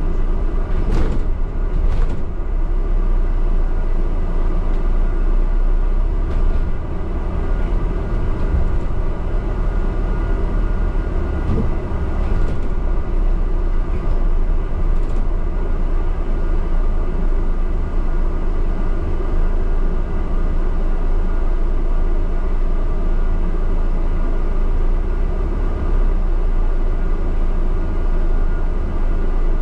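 Steady drone and low rumble of a London double-decker bus on the move, heard from inside the upper deck, with a few faint clicks and rattles.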